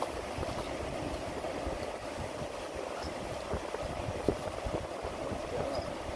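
Mountain stream rushing over rocks in a steady wash of water noise, with wind buffeting the microphone; one short knock a little past four seconds in.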